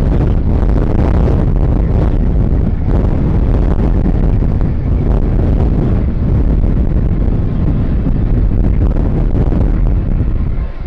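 Jet airliner passing low overhead on its landing approach: loud, steady engine noise heavy in the low end, with wind buffeting the microphone, easing off near the end.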